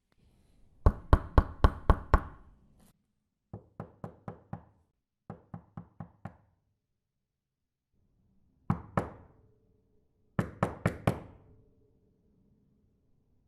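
Knocking on a door: five bursts of quick knuckle raps, three to six knocks each, some loud and some softer, with pauses between them.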